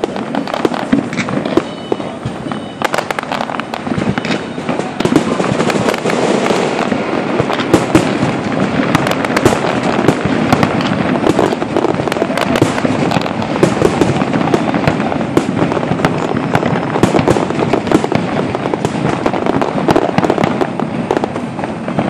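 Fireworks barrage: rapid, overlapping bangs and crackles of aerial shells bursting, growing denser and louder about five seconds in and then running on as a continuous volley.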